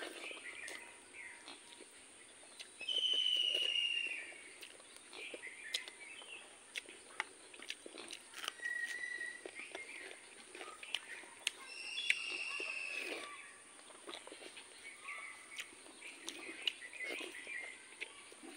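Eating sounds of rice and chicken curry eaten by hand: chewing and lip smacking with many small mouth clicks. A bird calls over it with a long whistle falling slightly in pitch, loudest about three seconds in and again around twelve seconds, against a steady high-pitched whine.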